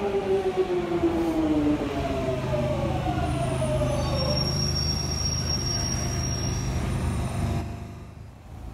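London Underground Jubilee line train braking into the platform: its traction motors whine in falling tones over the first few seconds as it slows, with a thin high squeal midway over a low steady rumble that fades near the end.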